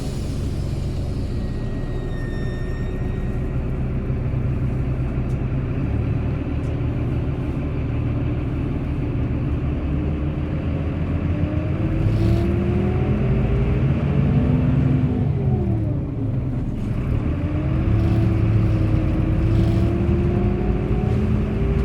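Bus engine running under load and accelerating: the engine note climbs, drops back at a gear change about two-thirds of the way through, then climbs again. A brief thin high squeal comes near the start.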